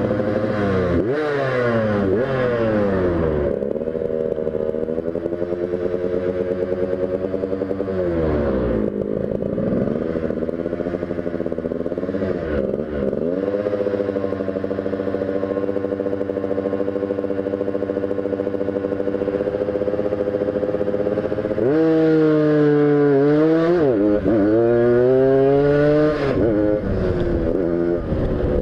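Tuned motorcycle engine under way at high revs, its pitch dropping and climbing back several times as the throttle is eased and reopened or gears change, with a burst of up-and-down revving near the end.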